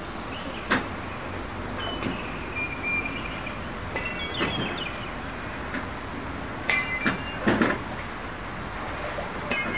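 Several sharp metallic clinks over a steady hiss, three of them ringing briefly with a high, chime-like tone. A thin whistling tone sounds for about a second, a couple of seconds in.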